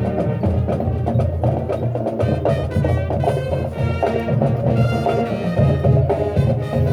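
Marching band playing a full-ensemble passage, pitched instruments over steady percussion with wood-block-like hits.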